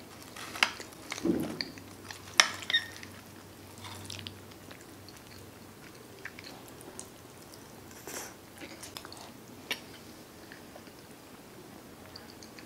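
A metal fork scraping and clicking against a glass baking dish of baked macaroni and cheese, along with soft chewing and wet mouth sounds. The sharpest clicks come in the first three seconds.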